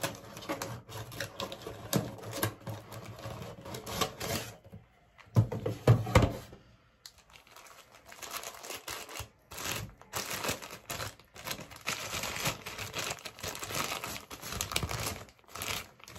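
White paper wrapping crinkling and rustling as it is handled and unfolded from around a camera, with irregular crackles. A few louder bumps about six seconds in.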